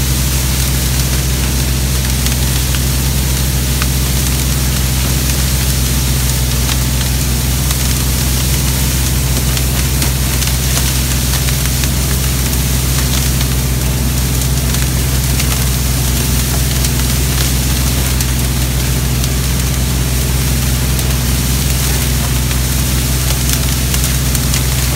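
Engines of a Kubota and a DR Power brush mower running steadily while cutting tall dry reeds: a constant low drone with a steady hiss over it.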